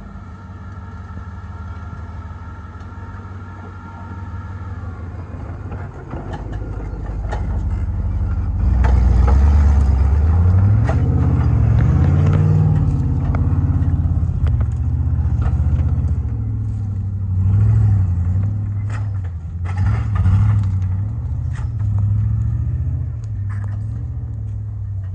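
Off-road competition 4x4's engine running low at first, then revved hard from about a third of the way in, its pitch rising and falling again and again, with scattered knocks and clatter.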